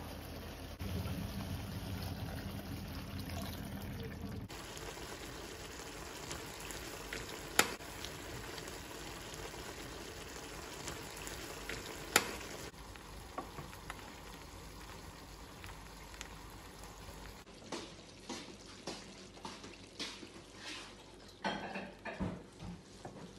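Beef and vegetable stew sizzling in a stainless steel pan while a spoon stirs it, clinking sharply against the pan twice. Near the end come a run of soft knocks and scrapes as the stew is tipped from the pan onto a plate.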